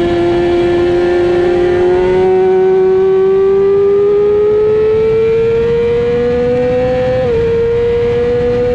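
Racing sportbike engine heard onboard at speed, its pitch climbing slowly under hard acceleration, then dropping a step about seven seconds in at an upshift, with steady wind rush.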